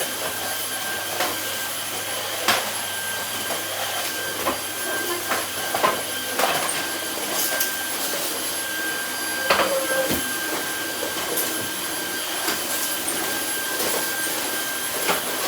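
Cordless Dyson stick vacuum running steadily with a high whine, over scattered sharp clicks.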